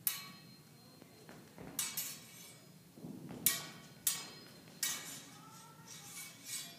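Steel small sword blades clashing in a slow stage-combat phrase: about six separate clinks, each ringing briefly, spaced unevenly, with a fainter ringing contact near the end.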